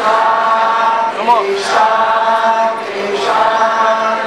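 Voices singing a slow chant in long held notes, the pitch stepping to a new note every second or so, with a short wavering glide about a second in.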